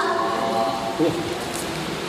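A group of voices singing together, the phrase trailing off about halfway through into a softer stretch with the hall's reverberation.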